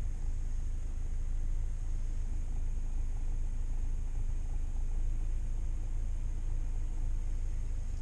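UAZ Patriot engine idling steadily, a low even rumble heard from inside the cabin, as it warms up with the radiator fan not yet switched on.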